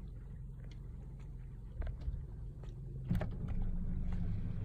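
A low, steady rumble, with a few sharp knocks about two seconds in and a louder knock just after three seconds, after which the rumble grows louder.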